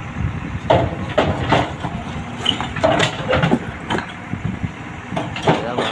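JCB 3DX backhoe loader's diesel engine running with a steady low drone, broken by several sharp, irregular knocks and clanks.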